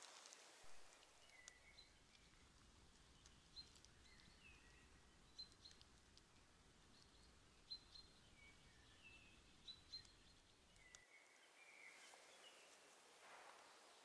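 Near silence: faint woodland ambience with short, high bird chirps every second or so and a few faint clicks.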